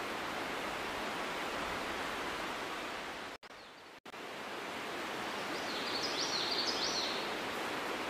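Steady outdoor background hiss with no distinct source, broken by a brief dropout a little over three seconds in. A bird chirps a few times, high and short, about six seconds in.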